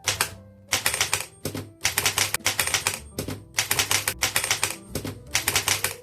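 1926 Remington Portable typewriter being typed on in quick bursts of sharp, high-pitched clacking, about six bursts with short pauses between them, with background music underneath.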